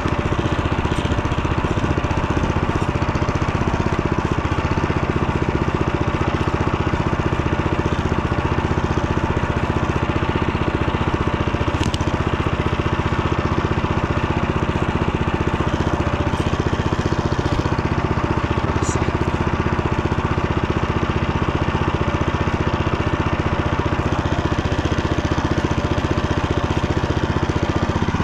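Motor Sich walk-behind tractor's engine running steadily at an even speed while driving.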